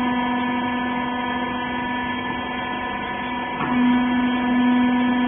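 Hydraulic baler's power unit (electric motor and pump) running with a steady hum. About three and a half seconds in there is a brief click, and the hum grows louder.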